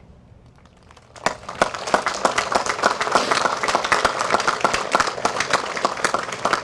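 Audience applause, starting about a second in and holding steady.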